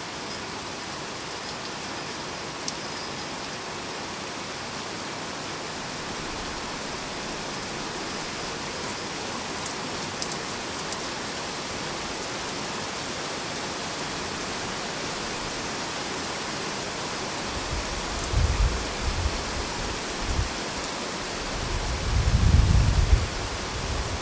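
Steady rainstorm: heavy rain falling with a constant hiss and a few sharp drop ticks. In the last quarter, low rumbles rise and fall in gusts.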